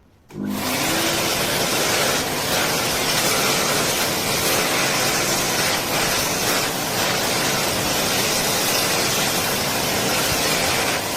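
anydry 2065 double-sided hand dryer starting up, its motor pitch rising briefly, then blowing air with a loud, steady rush.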